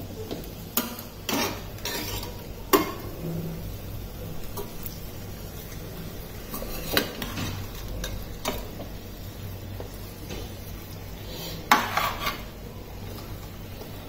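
Metal spoon scraping and knocking against a non-stick kadai as pieces of kingfish in thick masala are gently turned over, in irregular clicks and scrapes, over a low sizzle from the pan on a slow flame.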